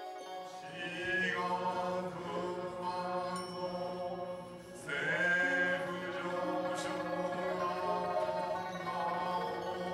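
Chanting voices over a steady low drone, in the manner of a Buddhist chant. The voices swell about a second in and again near the five-second mark.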